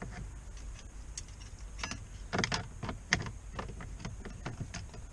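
Irregular clicks and knocks of a metal switch panel and the plastic dash trim being handled and pressed into place under a car's steering column, with a cluster of sharper knocks about two and a half to three seconds in.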